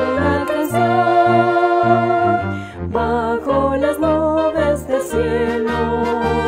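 A municipal anthem sung by voices with vibrato over instrumental accompaniment and a steady pulsing bass line, with short breaks between the sung phrases.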